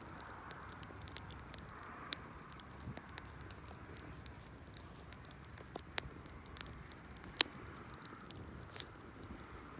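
Wood fire crackling inside a mud updraft kiln: scattered sharp pops at irregular intervals, one louder snap about seven seconds in, over a faint hiss.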